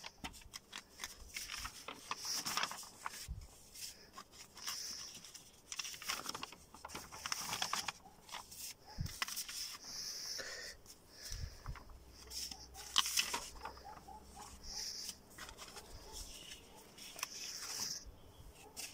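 Sheets of paper drawings rustling and crackling as they are handled and leafed through, in irregular short swishes.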